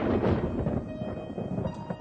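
Thunder rumbling, loud at first and fading away over about a second and a half.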